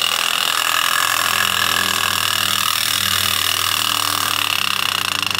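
Clockwork tinplate streamliner railcar running along garden-railway track, its wound-spring motor and gearing whirring steadily as the wheels roll on the rails.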